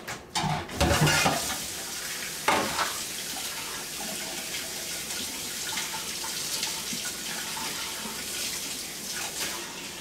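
Kitchen tap running steadily into a sink, as hands are rinsed of grated cheese, with a few knocks and clatters in the first seconds.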